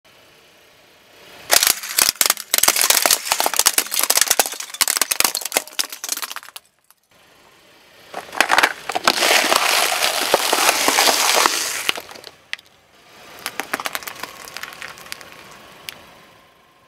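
Car tyre rolling over and crushing things on asphalt in three bouts: a rapid run of sharp cracks and snaps as plastic toy gumball machines full of candy break, then a dense crunching as Pringles cans and the crisps inside are flattened, then lighter crackling near the end.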